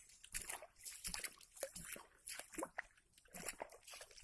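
Water sloshing and splashing in short, irregular bursts several times a second.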